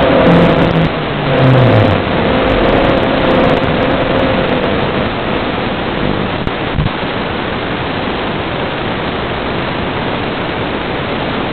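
Steady hiss and rush on an FPV racing drone's analog video-link audio, with faint motor tones in the first couple of seconds and a single knock about seven seconds in.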